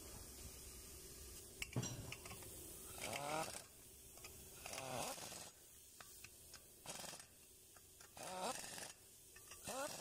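Pneumatic wrench running in about five short bursts, each a brief whine that bends in pitch, as it drives the bolts fastening a brake rotor to the wheel hub.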